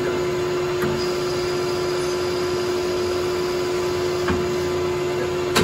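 Manual metal lathe running with a steady hum while turning the outside of a workpiece. Right at the end there is a sharp click, and the hum stops.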